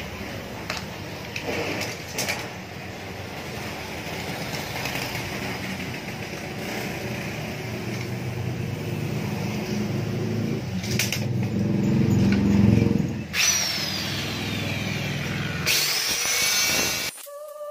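Steady workshop background noise with a low rumble that swells and then falls away about two-thirds of the way through, followed by a falling whine. Near the end a small handheld electric saw spins up with a rising whine and cuts into a wooden strip for about a second and a half, then cuts off abruptly.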